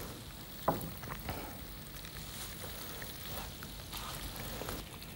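Sugar syrup bubbling and crackling faintly in a stainless steel pan as it caramelizes, with one sharper click under a second in.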